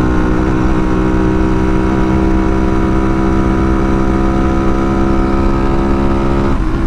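Honda Monkey's single-cylinder four-stroke engine running at a steady cruising speed under a low wind rumble. Near the end the engine note drops.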